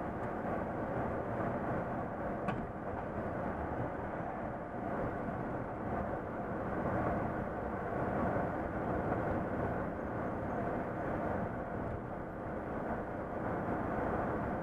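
Diesel engine of a three-axle Volvo FM truck running, with tyre and road noise, heard from inside the cab while cruising at a steady speed.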